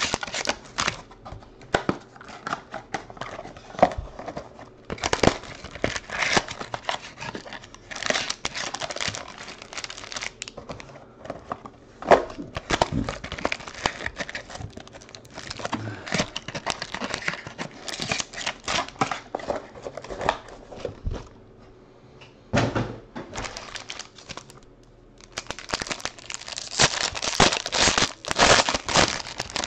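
Cellophane wrap being torn and crinkled off a trading-card mini-box by hand, in irregular crackles. Near the end a foil card pack crinkles loudly as it is handled.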